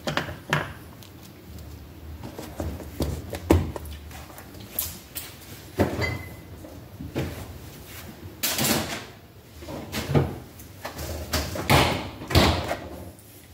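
A refrigerator door opening and closing, among irregular knocks and clunks as an ice cream tub is put away and a plastic jug of milk is brought out.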